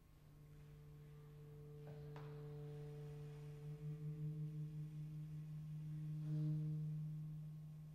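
Saxophone and clarinet holding soft, long, low notes of a contemporary piece: a steady low tone swells in, wavers with a beating pulse as the pitches rub in the middle, peaks near the end and fades away.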